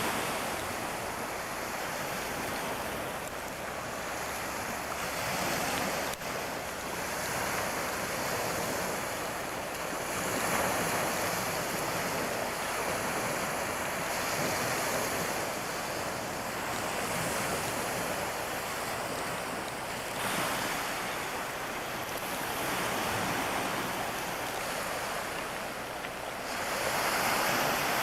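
Surf: waves washing in, a steady rushing noise that swells and falls every few seconds.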